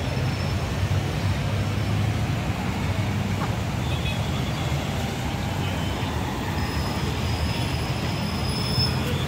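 Steady city road traffic: engines and tyres running with a low hum, with no single vehicle standing out.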